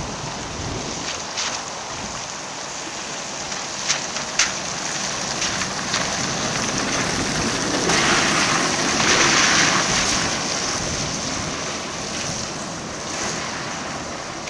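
A double-deck trolleybus passing close by, its tyres hissing on a wet road, with the swell loudest as it goes past about eight seconds in. A few sharp clicks come in the first few seconds, and wind rumbles on the microphone throughout.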